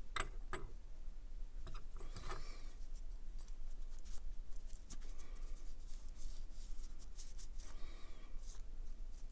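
Small metal pocket-knife parts being handled and cleaned: a few light clicks at the start, then two short bursts of rubbing or scraping, about 2 seconds in and again near the end, over a steady low hum.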